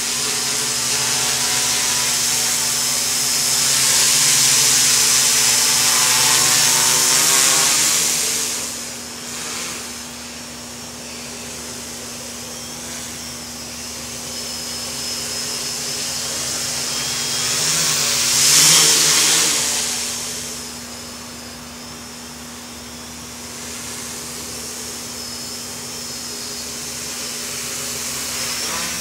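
Quadcopter's four brushless motors (KDA 20-28M on SimonK ESCs) spinning 10-inch propellers in flight, a steady buzzing drone with a held tone. It swells louder for several seconds about four seconds in and again briefly near nineteen seconds, and is quieter in between.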